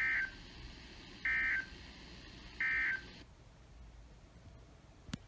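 NOAA Weather Radio SAME end-of-message data bursts: three short two-tone digital warbles about a second and a half apart, marking the close of the weekly test, over receiver hiss. The hiss drops out a little after the third burst, and a sharp click comes near the end.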